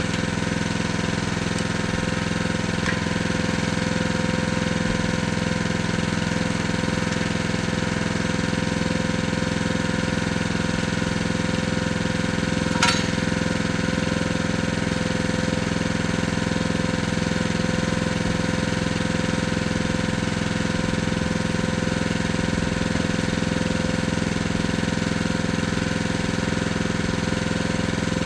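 Engine of a Jansen walking mini excavator running steadily at a constant speed, with a single sharp knock about halfway through.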